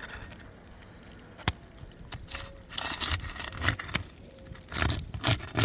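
Roof shingles scraping and crackling as they are pried up, with a sharp snap about a second and a half in. The shingles crack instead of lifting, the sign that they are too brittle to be repaired.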